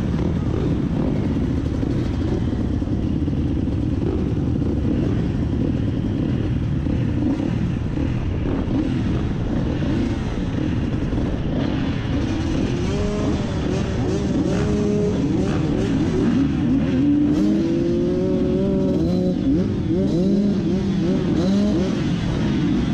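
Several MX2 motocross bikes' engines running together in a dense, steady drone; from about halfway through, individual engines rev up and down, their pitches rising and falling over one another.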